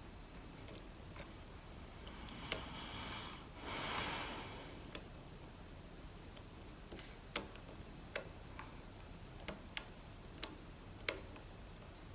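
Lock pick and tension tool working inside an Assa Abloy Arrow lock cylinder: irregular small metallic clicks and ticks, with a brief scraping rustle about three to four seconds in.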